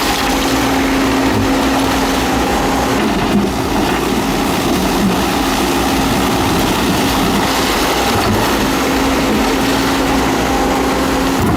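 A heavy construction machine's engine running steadily, with a constant drone.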